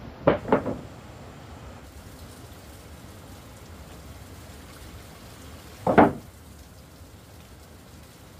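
Two quick knocks in a row, then one more about six seconds in, over a steady hiss.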